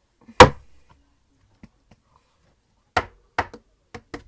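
Sharp knocks on a hard surface: one loud knock about half a second in, two more about three seconds in, and lighter taps near the end.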